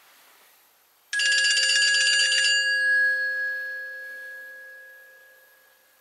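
Nokia C3 mobile phone playing a bell-like ringtone through its speaker. A rapid ringing trill starts suddenly about a second in and lasts about a second and a half, then a held tone fades away over the next few seconds.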